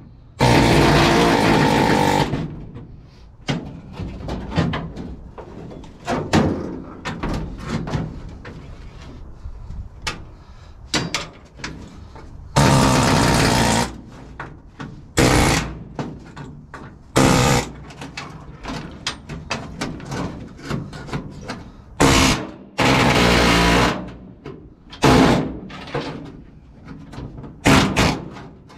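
Pneumatic air hammer with a chisel bit firing in about eight short bursts, cutting the spot welds of the seat platform on the truck's steel cab floor, with clanks and taps of metal between the bursts.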